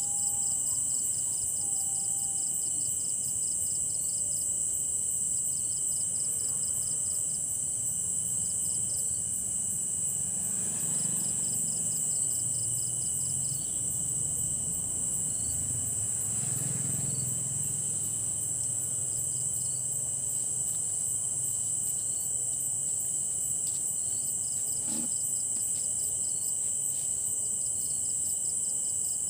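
Night chorus of crickets and other insects: a steady high-pitched trill, joined by another insect's rapid pulsed chirps in short runs. A faint low rumble swells and fades around the middle.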